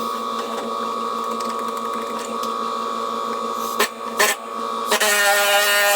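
A power tool running with a steady whine while cutting into the rusty floor-pan area of a car body, with a few sharp knocks near four seconds in and a louder, higher stretch from about five seconds as the tool bites harder.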